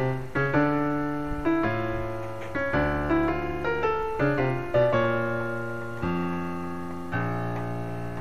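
Background piano music: slow notes and chords struck every second or so, each left to ring and fade.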